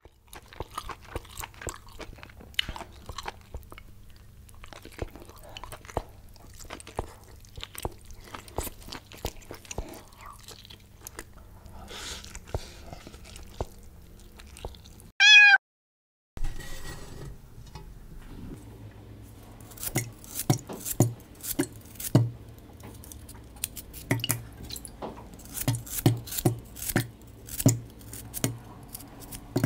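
Close-miked chewing and slurping of noodles for the first half. About halfway comes a short ringing tone, the loudest sound, then a second of silence. After that a knife cuts chunks of angled luffa over a stainless steel pot, each piece landing in the pot with a knock, about one to two a second.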